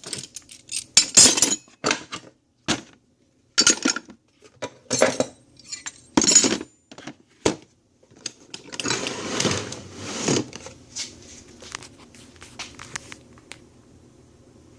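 Metal hand tools clinking and clattering as they are put back into a plastic toolbox: a series of sharp clanks, then about two seconds of scraping and rustling roughly nine seconds in, followed by a few light ticks.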